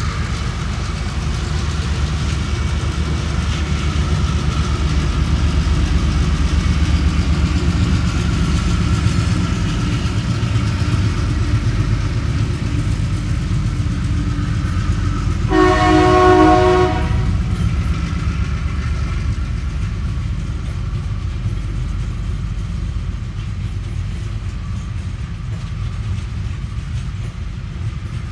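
Freight train hauled by three Tasrail diesel locomotives passing: the locomotives' engines running as they go by, then loaded container wagons rolling past with a steady rumble of wheels on the rails. About halfway through, a locomotive horn sounds once, briefly, as a chord of several tones.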